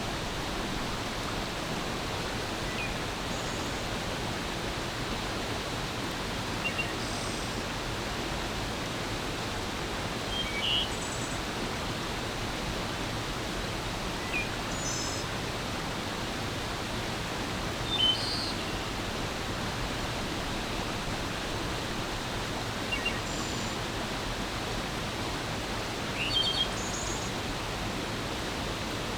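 Forest stream flowing in a steady rush, with brief bird chirps every few seconds over it; the strongest come about two thirds of the way through and again near the end.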